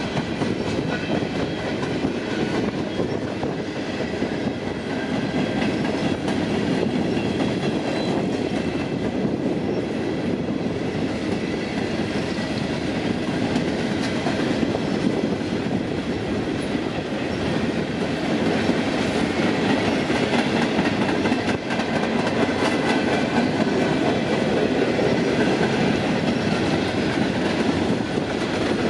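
Freight cars of a coal train rolling past: a steady rumble of wheels on rail with clickety-clack over the rail joints.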